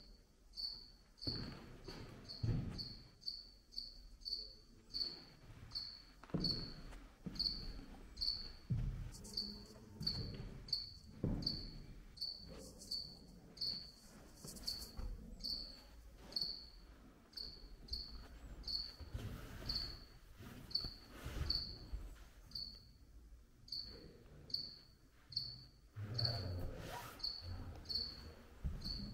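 High, short chirps repeating evenly, a little more than once a second, over irregular low thuds of footsteps.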